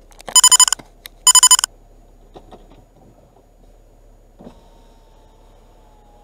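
Two short groups of rapid, loud electronic beeping near the start. About four seconds in, a click and then a faint motor whine, falling slightly in pitch over about three seconds, as a car's power window runs.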